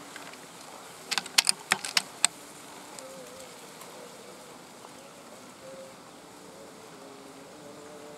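A quick run of about six sharp metallic clicks about a second in, typical of an air rifle's bolt being cycled to reload after a missed shot. Faint low cooing of spotted doves comes now and then.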